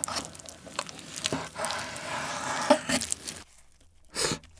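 Knife slicing through a raw salmon fillet on a wooden cutting board: soft, wet cutting strokes. Near the end it goes quieter, with one short sound as a cut slice is peeled off the fillet.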